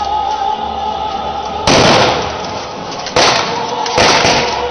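Three loud rifle shots, blanks fired by reenactors, each echoing and fading over about a second; the second and third come close together near the end.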